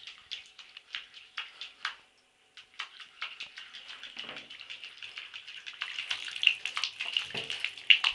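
A small dog's claws scrabbling and scratching rapidly on the bottom of a bathtub, a quick run of short scrapes and clicks that stops for a moment about two seconds in, then comes back faster and louder, with a few duller bumps near the end.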